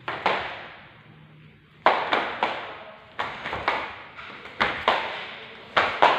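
A series of about fourteen sharp, irregular taps in small clusters, each ringing on briefly in the echo of a hard marble-floored hall.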